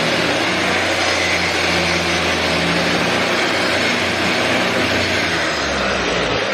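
DeWalt angle grinder with a diamond cup wheel grinding down concrete: a steady, loud motor whine over the rasp of the wheel on the surface.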